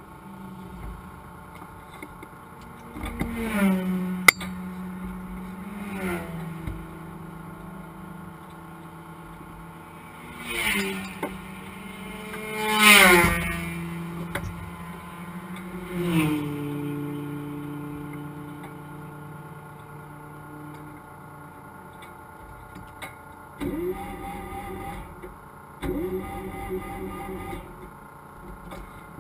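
Race car's damaged engine running inside the cabin, revved up and down several times, then its note dies away. Later the starter cranks it in two attempts that do not catch: the engine will not restart after going up in smoke.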